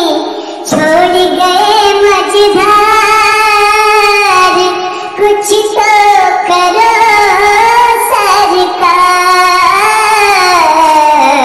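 A song: a high-pitched solo voice singing a slow melody in long, held, gliding notes, with musical backing.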